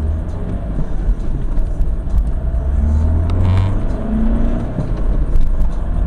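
Car engine and road noise heard from inside the cabin as the car pulls away from a stop and gathers speed. The engine note rises about halfway through.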